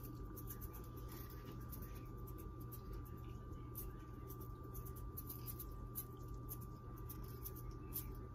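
Spice grinder of Montreal steak seasoning being twisted by hand, giving a faint, fast, irregular clicking and crunching as the seasoning is ground.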